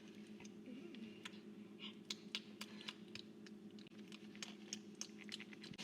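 Faint, irregular light clicks and taps, a few a second, over a low steady hum.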